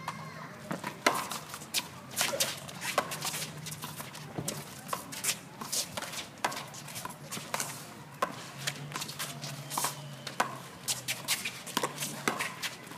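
Three-wall handball rally: sharp, irregular smacks of the rubber handball off players' hands and the concrete walls and floor, some with a short echo, mixed with shoe shuffles and scuffs on the concrete court.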